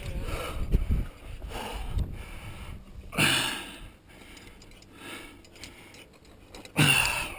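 A climber's heavy breathing: loud huffing exhales about three seconds in and again near the end. Between them are scuffs and knocks of shoes and hands on the rock, with faint clinks of gear.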